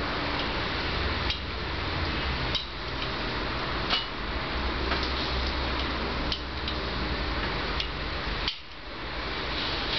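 Lock pick and tension tool working the pin stack of a Mul-T-Lock Garrison euro cylinder clamped in a vise: scattered small metallic clicks and scrapes as the pins are set one by one.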